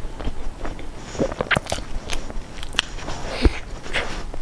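Flaky baked pastry being torn apart by hand and bitten into: a run of crisp crackles and small crunches, with chewing and one louder knock past the middle.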